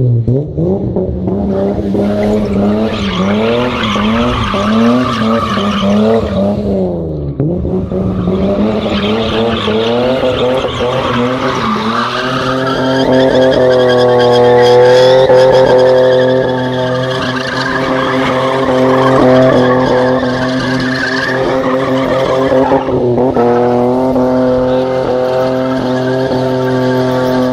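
BMW E30 drifting: the engine is blipped up and down in quick rev bursts for the first several seconds, dips briefly, then is held at high revs with the rear tyres squealing continuously through a burnout.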